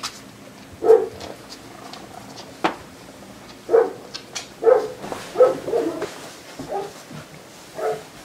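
Siberian Husky puppy giving short, high yips and little barks, about seven of them spread over several seconds, with a few light clicks in between.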